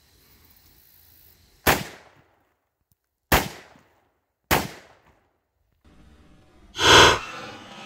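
Three single rifle shots from an M1A in 7.62 mm, a second or so apart, each with a short echo. Near the end comes a louder, drawn-out bang, heard close to the target as a soda bottle is hit and bursts.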